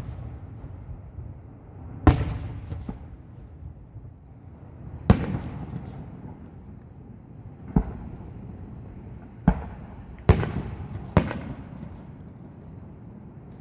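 Fireworks display: aerial shells bursting in six loud booms at irregular intervals, each trailing off in a low rumble.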